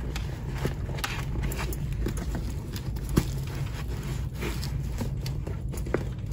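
Hands pushing a foam cheek pad back into a motorcycle helmet's liner: soft rustling and scattered light knocks, with two sharper clicks about three seconds in and near the end as the pad's snap fasteners seat.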